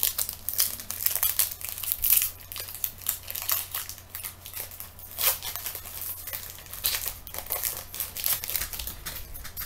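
Wrapper of a Panini NFL trading-card pack crinkling and tearing in the hands as the pack is opened: an irregular run of sharp crackles.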